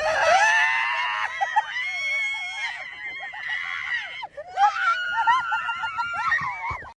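A person screaming in fright, two long high-pitched screams, the second cut off abruptly near the end.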